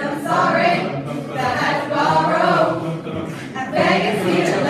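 A mixed group of young men and women singing together unaccompanied, in choir fashion. The singing comes in phrases, with brief breaks about a second in and again a little past three seconds.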